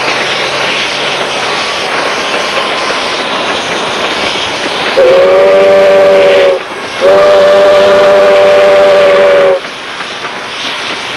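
South Australian Railways 520-class 4-8-4 steam locomotive No. 520 sounding its whistle twice about five seconds in: a short blast, then a longer one of about two and a half seconds, several tones at once. The whistle sounds over a steady rushing noise.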